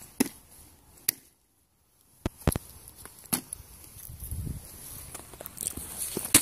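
A sneakered foot kicking and stomping a hard-shelled motorcycle helmet on grass: about half a dozen sharp knocks on the plastic shell, with dull footfalls in the grass between. The sound drops out completely for about a second, a little over a second in.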